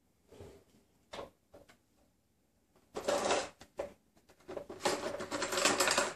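A kitchen utensil drawer being handled off to the side while a fork is fetched: a few light knocks, then two spells of metal cutlery clattering and rattling, the second one longer. The clatter stops abruptly near the end.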